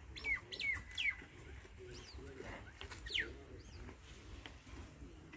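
Small birds chirping: three quick falling whistles in the first second, then a longer falling one about three seconds in.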